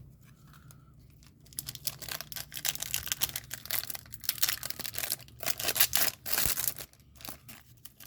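A trading card pack's wrapper being torn open and crinkled by hand: a dense run of crackling and tearing that starts about a second and a half in, with a short pause near the end.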